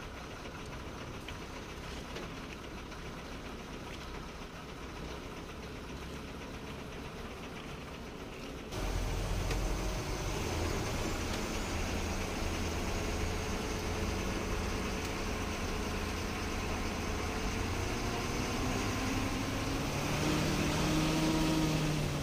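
Truck's diesel engine running at low speed, quiet at first, then much louder with a heavy low rumble from about nine seconds in. Its pitch rises near the end as the engine revs up.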